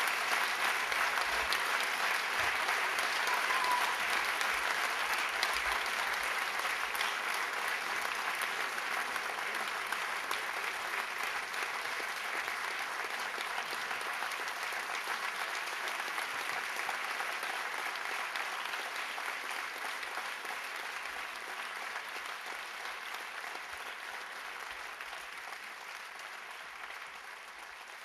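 Theatre audience applauding, a dense steady clapping that slowly fades out.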